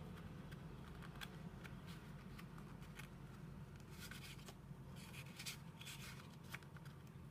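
Paper business cards sliding in and out of the pocket of a black pebbled-leather card case: faint scraping and rustling with small taps, busiest in the second half, over a low steady hum.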